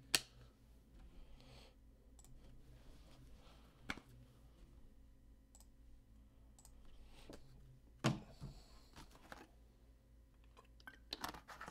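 A quiet room with a few faint, scattered sharp clicks: one about four seconds in, a slightly louder one about eight seconds in followed by a couple of softer ones, and a quick cluster of small clicks near the end.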